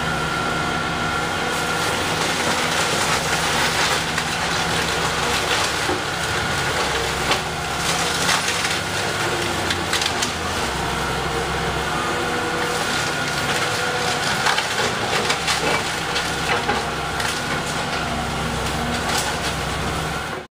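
A heavy demolition machine runs steadily as its engine drones while it crushes a wood-framed house. Timbers crack, snap and splinter over and over, with several thick flurries of breaking.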